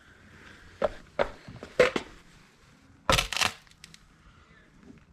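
Handling noises as exhaust parts are moved on and off a scale: a few sharp knocks about a second in and near two seconds, then a longer crinkling, rustling clatter around three seconds.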